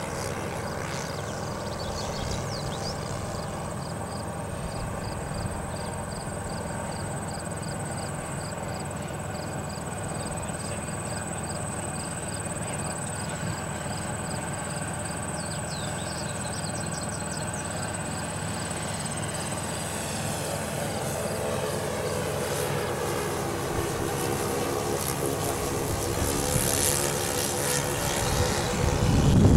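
Propeller airplane flying overhead, its engines making a steady drone that grows louder in the last third. A burst of rough noise comes in right at the end.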